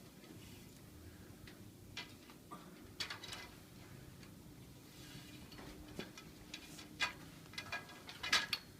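Scattered light clicks and knocks of wire shelving parts being handled and fitted together, about seven or eight irregular taps.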